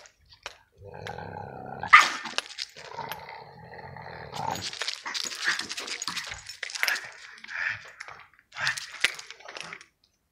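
A French bulldog growling and grunting in low rumbling spells, then a run of short rough growls and snorts.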